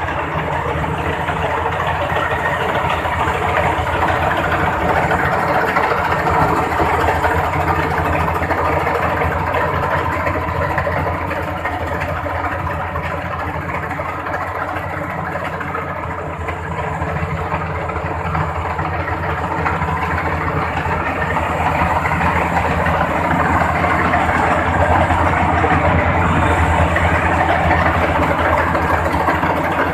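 Rice combine harvester's engine running steadily under load with a broad mechanical noise over a low drone, easing slightly midway and building again toward the end.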